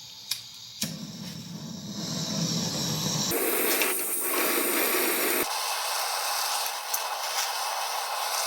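Heat gun blowing steadily with a continuous hiss, its tone shifting abruptly a few times, used to heat an acrylic gear knob to free its threaded insert. A couple of light clicks come near the start.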